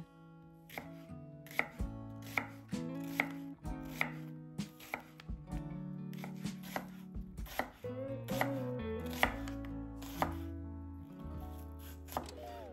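Chef's knife slicing a red onion into half rings on a wooden cutting board: a crisp knock of the blade through the onion onto the board every second or so, over soft background music.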